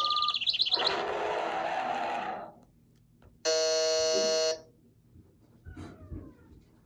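Electronic sounds: warbling chirps and short beeps over a dense background for about two seconds. After a short pause comes a single harsh buzzer tone lasting about a second.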